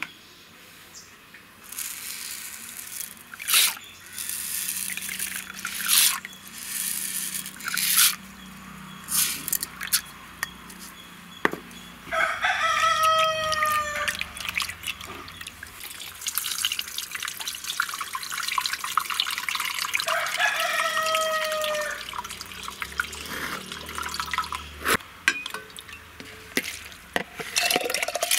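Split lentils being washed by hand in water in a plastic bowl: splashing and swishing of water. A rooster crows twice in the background, about halfway through and again about two-thirds of the way through, each crow lasting about two seconds.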